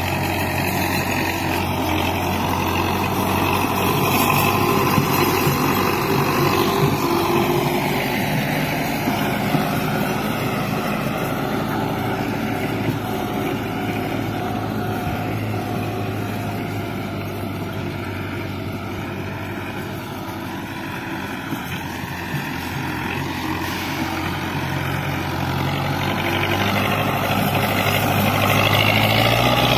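Farm tractor's diesel engine running steadily under load as it pulls a land leveler across dry ploughed soil, growing louder near the end as the tractor comes closer.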